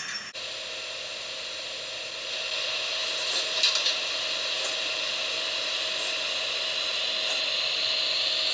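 HOm-scale model locomotive running on the layout's track: a steady whirring hiss with a high motor whine. From about two seconds in, the sound grows louder and the whine rises slightly in pitch.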